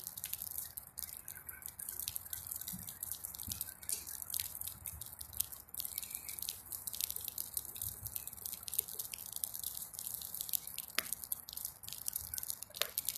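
Bonfire of burning weeds crackling with rapid, irregular snaps and pops, a couple of sharper pops near the end.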